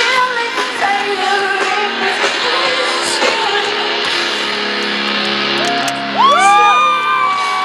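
Live rock band playing with a singer, heard in a loud concert mix. About six seconds in it gets louder as a high note swoops up into pitch and is held.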